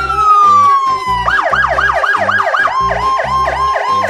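Electronic vehicle siren worked from a handheld controller: a single tone winds down for about the first second, then it switches to a rapid yelp of about four sweeps a second, with a steady tone sounding alongside it from about halfway through.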